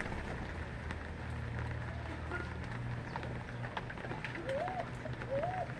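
A bird gives two short calls near the end, each rising and then falling in pitch, over scattered light ticks and a steady low hum.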